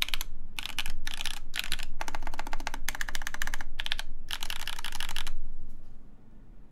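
Typing on a full-size mechanical keyboard with JWK Camping Life switches lubed with Krytox 205g0, mounted in an aluminum plate and topped with MW Retro Lights keycaps: quick runs of keystrokes with short pauses between them. The typing stops about five and a half seconds in.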